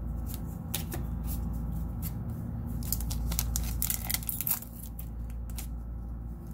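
Foil booster-pack wrapper being crinkled and torn open by hand: a run of short crackles and tears, busiest around the middle, over a steady low hum.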